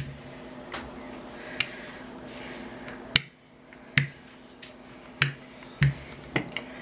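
Wooden rolling pin being worked back and forth over a sheet of dough on a countertop, giving sharp, irregular clicks and knocks about once a second.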